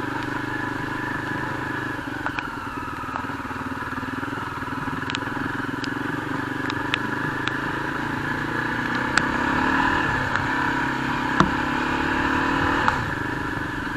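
Yezdi Adventure's single-cylinder engine running steadily as the motorcycle rides slowly along a dirt trail, swelling slightly a couple of times, with a dozen or so scattered sharp clicks.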